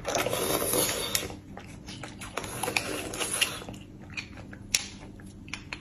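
Wet mouth sounds of eating for about the first second, then a metal spoon scraping and clicking inside a roasted beef marrow bone as the marrow is dug out, with scattered sharp ticks.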